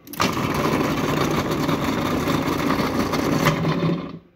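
Breville Sous Chef 16 food processor running with its peeling attachment, its motor humming while ginger chunks rattle and clatter around the spinning peeling disc. It starts abruptly and stops about four seconds in.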